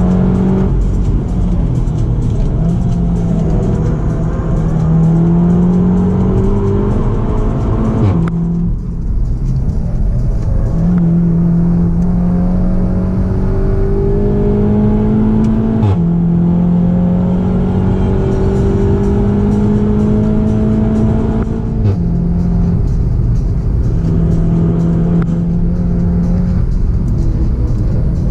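Seat Leon Cupra 290's turbocharged 2.0-litre four-cylinder engine heard from inside the cabin, pulling hard with its pitch climbing steadily through each gear. The DSG gearbox upshifts with quick drops in pitch about eight and sixteen seconds in, and the pitch falls again a little after twenty seconds.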